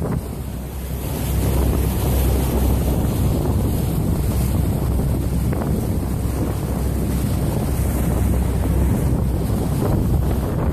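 Wind buffeting the microphone over the steady rush and splash of water at a moving boat's bow.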